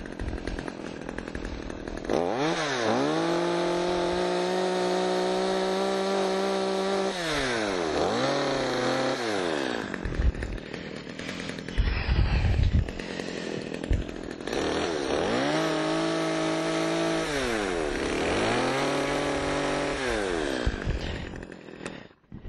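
Gas chainsaw revved up four times to cut through a freshly cut alder branch, each cut a long high-pitched run, dropping back to idle between cuts. The engine goes quiet near the end.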